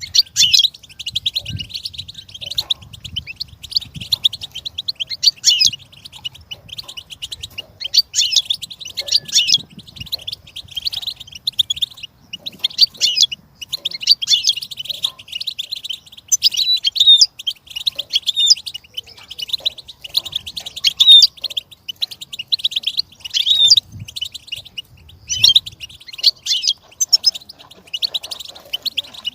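European goldfinch singing: fast, high twittering and trilling phrases, one after another with brief pauses.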